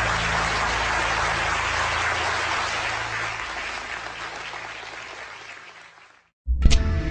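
Audience applauding in a lecture hall, steady at first and then fading out over several seconds. Near the end, after a brief silence, loud music with a deep booming low note starts abruptly.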